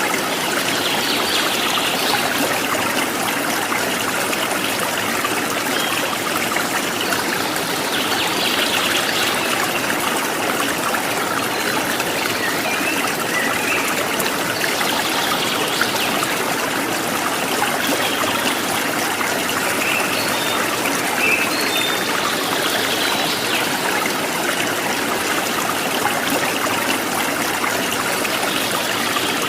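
Running water in a stream, a steady rushing trickle, with a brighter high splash swelling up every six or seven seconds.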